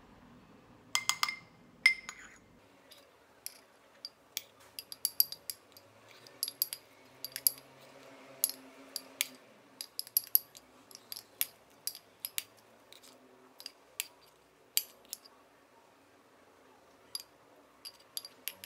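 Metal spoon clinking and scraping against the side of a small cup while stirring a thick mix of ground coconut and apricot jam, in quick irregular taps; the taps thin out near the end.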